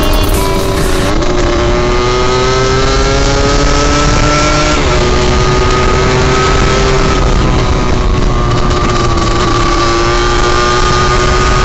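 Small dirt bike engines running under way, their pitch climbing as they accelerate, dropping sharply once about five seconds in, then holding fairly steady. Wind rumbles on the microphone of the moving bike.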